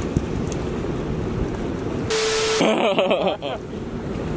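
Steady rush of the spillway's water below the dam, with wind on the microphone. About two seconds in comes a short burst of hiss with a steady hum, then a man's voice briefly in wordless exclamation.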